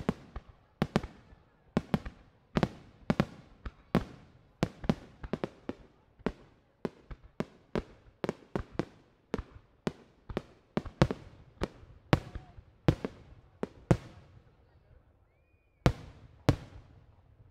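Aerial fireworks shells bursting in quick succession, about two or three sharp bangs a second, each with an echoing tail. There is a short lull near the end, then two more bangs.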